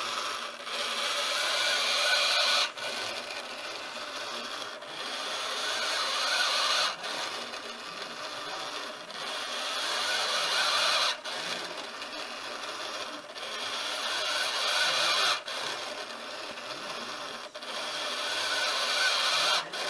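Large sail-winch servo of an automated bag-valve-mask ventilator running in a steady cycle, winding in the cord that pulls the arm down on the Ambu bag and letting it back out. The strokes last about two seconds each, one full breath about every four seconds, and every other stroke swells louder and stops abruptly.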